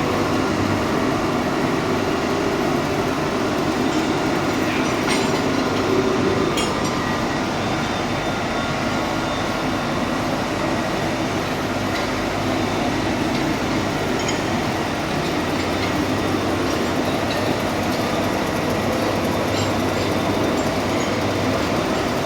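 Steady, loud din of machinery running in a ship's engine room, with a low hum and a few faint metallic clicks.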